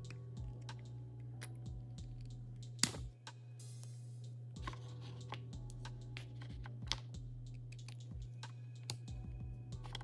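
Small plastic clicks and taps from handling the pump head of an NZXT Kraken Z63 AIO liquid cooler while its mounting bracket is swapped for the AMD one, with one sharp, louder click a little before three seconds in. Soft background music and a steady low hum run underneath.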